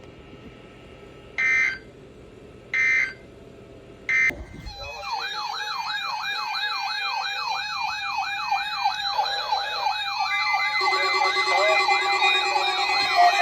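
Three short buzzy digital data bursts from a NOAA Weather Radio broadcast, the end-of-message signal that closes the test. About four seconds in, several warning sirens start together, one rising and falling quickly about twice a second over steady tones, with more siren layers joining near the end.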